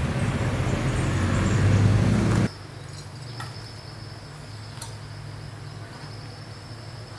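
A motorbike's four-stroke engine running, cutting off abruptly about two and a half seconds in. After that a faint low hum, a steady high whine and a few light clicks remain.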